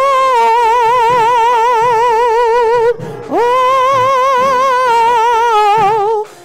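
A woman singing gospel solo, holding two long notes with a strong, even vibrato. The first breaks off about three seconds in; the second slides up into pitch and is held for about three seconds.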